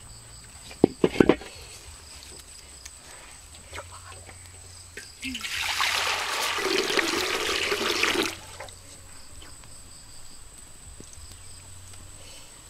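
Water poured in a steady stream into a metal wok, splashing for about three seconds starting about five seconds in. About a second in, a quick cluster of sharp knocks.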